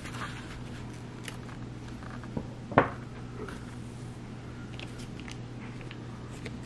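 Small handling sounds at a tabletop: a few light clicks and one sharp knock about three seconds in, as a plastic cup and scissors are handled, over a steady low hum.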